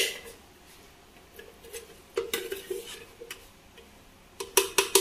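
Scattered light clicks and taps of kitchenware being handled on a countertop, with a sharp clink at the start and a quick run of sharper clicks near the end.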